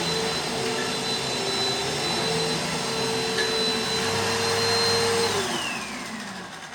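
Bissell PowerForce Helix Turbo Rewind upright vacuum cleaner running with a steady whine. It is switched off a little after five seconds in, and the motor winds down with a falling pitch.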